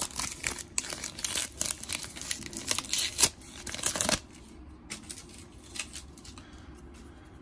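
Foil wrapper of a Panini Chronicles Draft Picks trading-card pack being torn open and crinkled, the rustling stopping about four seconds in as the cards are pulled out.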